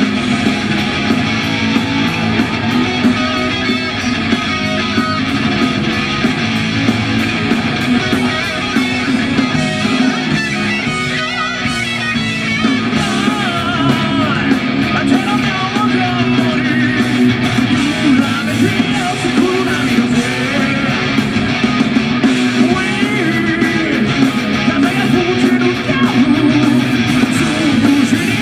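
Japanese heavy metal band playing live: electric guitars, bass guitar and drums, with a wavering melodic line over the middle stretch.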